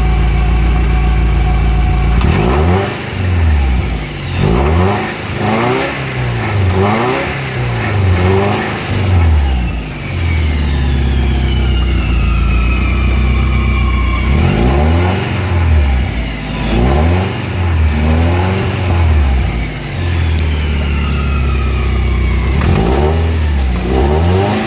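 Subaru Impreza GC8's engine and driveline, steady for about two seconds, then with the revs rising and falling over and over on and off the throttle. A higher whine that falls slowly in pitch runs through the middle: gear noise that now comes through after the rear differential mount was stiffened with spacers.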